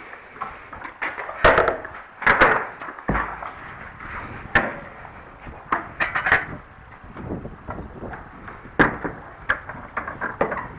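Irregular sharp knocks and clatters, the loudest about one and a half and two and a half seconds in, with more scattered through the rest.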